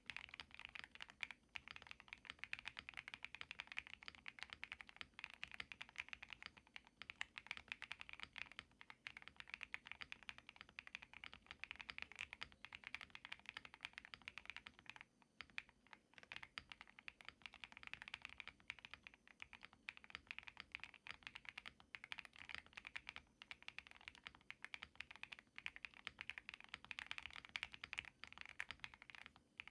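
Continuous fast typing on a GMK87 custom mechanical keyboard with hand-lubed BSUN Cherry Blossom linear switches, a dense run of key clicks with a brief pause about fifteen seconds in.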